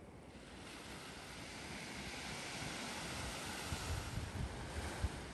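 Surf on a sandy beach: the hiss of a wave washing in swells from about half a second in and eases near the end, with wind buffeting the microphone.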